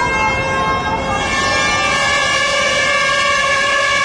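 Several protest sirens sounding together in steady, held tones that overlap, over a low din of crowd noise.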